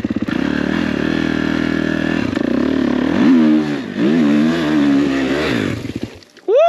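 Kawasaki KX motocross bike's engine running hard, its revs rising sharply twice before dropping away near the end. A short rising whoop follows the engine.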